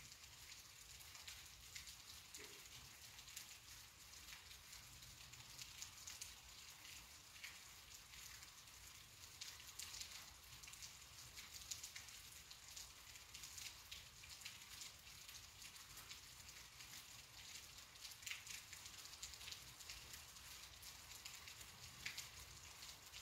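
Rain falling: a faint, steady patter made of many small drop ticks.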